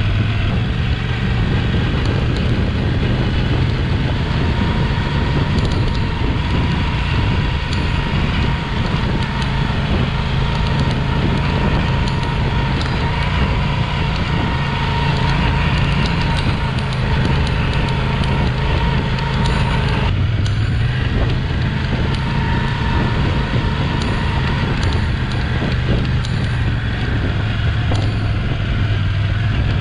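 Yamaha Ténéré 700's parallel-twin engine running steadily as the bike rides a grassy track, with tyre and wind noise underneath. About twenty seconds in there is a brief break and the engine pitch shifts.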